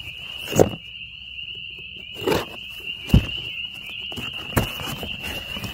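Folding pocket knife slicing the packing tape on a cardboard box: several short scraping cuts and one sharp click about three seconds in. A chorus of frogs calls steadily behind them.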